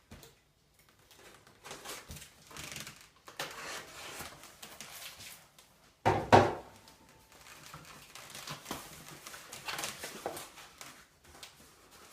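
A small cardboard box being opened and its packaging handled: cardboard scraping and rustling, with one loud knock about halfway through.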